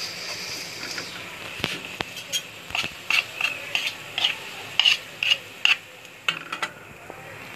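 A spatula stirring and pressing thick cooked semolina dough around a non-stick frying pan: a run of short, irregular scrapes and clicks against the pan.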